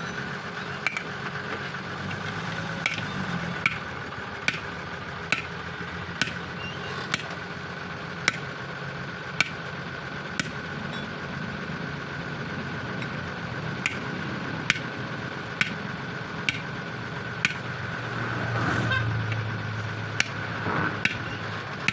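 Hand hammer striking the edge of a truck wheel's steel rim and tyre bead, sharp single blows about once a second with a pause of a few seconds midway, as the tyre is worked off the rim. A steady engine hum runs underneath, and a vehicle swells past near the end.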